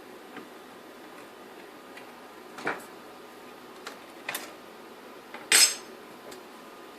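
Small metal parts and tools clinking on a worktop while a car sat-nav unit is dismantled: a few light taps, then a sharper, ringing clink about five and a half seconds in.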